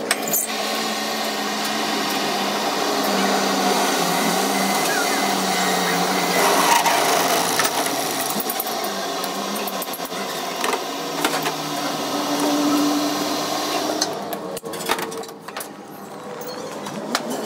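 Metal lathe running steadily while a twist drill in the tailstock bores into the centre of a spinning truck wheel hub, with motor hum and cutting noise. The sound dips and breaks up near the end.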